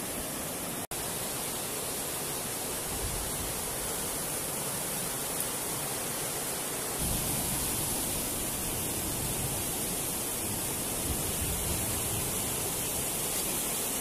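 Fast mountain river rushing over rocks, a steady even hiss of white water. The sound drops out for an instant about a second in.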